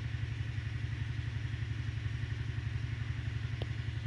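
A small engine running steadily in the background, a low rumble with a rapid even pulse.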